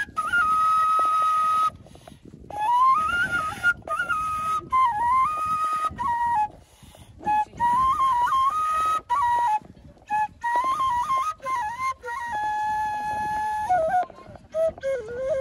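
Solo flute playing a slow, ornamented melody: long held notes broken by quick trills and slides between pitches, with brief pauses between phrases.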